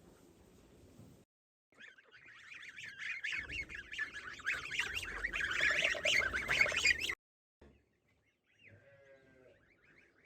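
A flock of poultry calling, with many overlapping calls that build up and then cut off suddenly about seven seconds in. A single faint call follows near the end.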